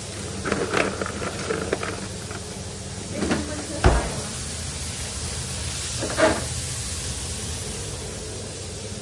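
Frozen fries scooped by gloved hands and rattling into a basket, then a loud hard knock about four seconds in and a lighter clunk a couple of seconds later, over the steady low hum of commercial kitchen equipment.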